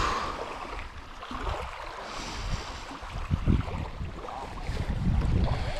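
Wind buffeting the microphone in low, uneven gusts, stronger about halfway through and near the end, over small waves lapping at the shore.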